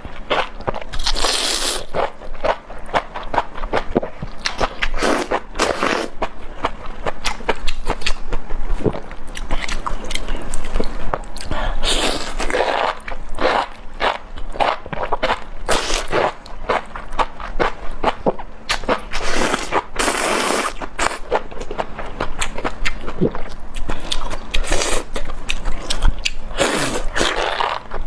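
Close-miked mouth chewing spicy enoki mushrooms: a dense run of quick wet clicks and smacks. Every few seconds it is broken by a longer, louder noisy burst.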